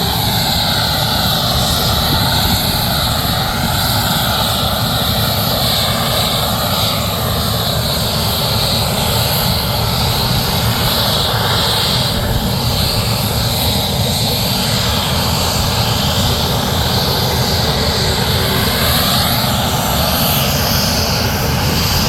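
Aircraft engines running loud and steady, with a constant high whine over a broad rushing noise.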